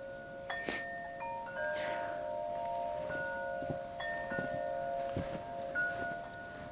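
Wind chimes ringing: several metal tones struck at irregular moments, each ringing on and overlapping the others.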